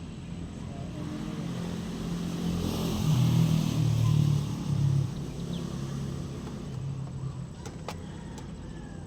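Diesel engine of a Doosan 190 wheeled excavator, which is hard to start, rising to a louder revving pitch for a couple of seconds, then dropping back and running lower.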